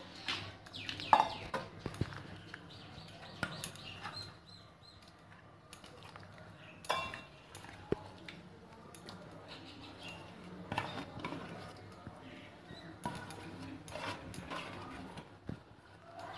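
Spiced koi fish being scooped by hand from a bowl into a stainless-steel tiffin box: scattered soft knocks and clinks of the bowl and fish against the steel.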